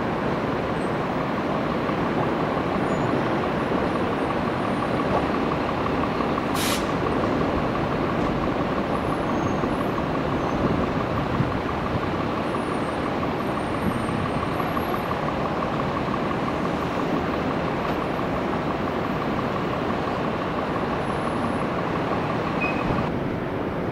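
Jet airliner engines running: a steady roar with a constant whine, and a brief hiss about a third of the way in.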